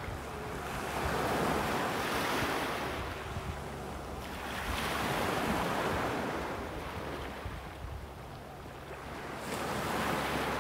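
Small sea waves breaking on a pebbly shore, the surf swelling and washing back about every four seconds.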